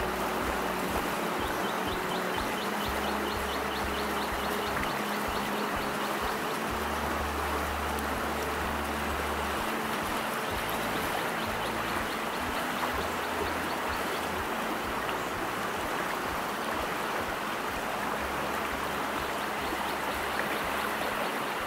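Steady rush of a shallow stream riffle, water running fast over rocks.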